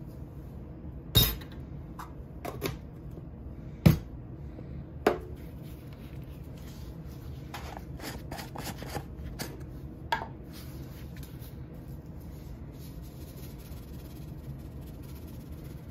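Plastic seasoning shaker bottles handled over a ceramic crock pot: three sharp clicks and knocks about one, four and five seconds in, a lighter one near ten seconds, and a run of faint ticks in between, over a steady low hum.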